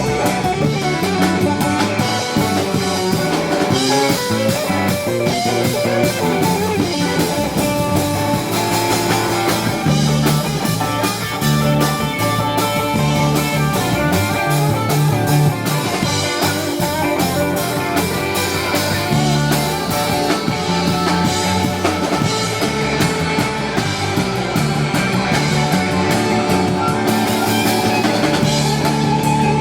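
Rock band playing live, an instrumental passage led by guitar over drum kit and low sustained notes.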